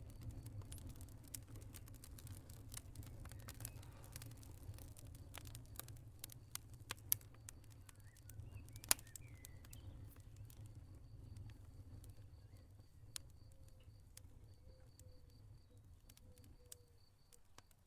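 Campfire crackling: burning wood snapping and popping in irregular sharp clicks over a low steady rumble, with a couple of louder pops about seven and nine seconds in.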